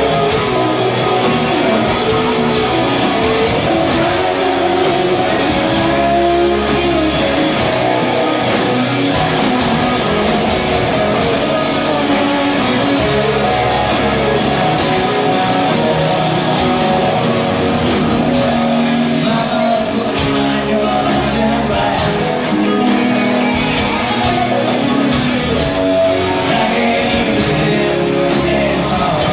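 Rock music with guitars to the fore and a singing voice.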